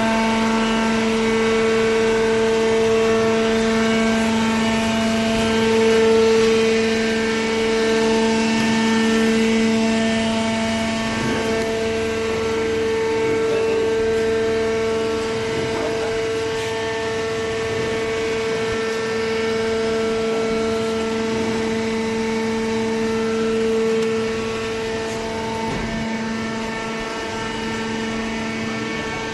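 Hydraulic cardboard baler's electric motor and hydraulic pump running with a steady hum at one fixed pitch. It gets slightly quieter in the last few seconds.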